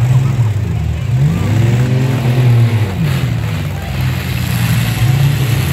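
Demolition derby pickup truck engines revving up and down repeatedly as the trucks push and ram one another, with a brief knock about three seconds in.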